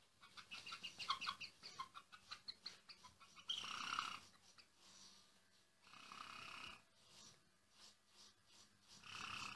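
White hens making soft vocalisations: a quick run of short clucks over the first few seconds, then three longer drawn-out calls a couple of seconds apart.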